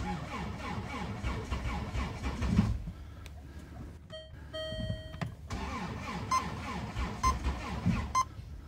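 Cold diesel car engine being cranked slowly by its starter in two short attempts that fail to start it at −24 °C, with a brief steady electronic tone between the attempts.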